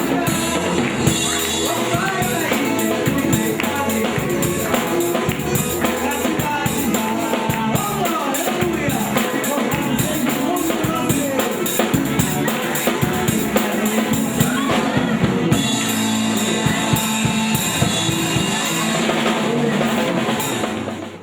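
A live band of drum kit, electric guitar, bass and keyboard playing a gospel song, with the drum kit prominent; the music fades out quickly right at the end.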